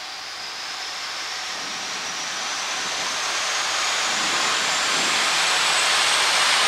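Lilium Phoenix 2 demonstrator's electric ducted fans spooling up for takeoff: a rushing hiss with a thin high whine that rises in pitch, growing steadily louder.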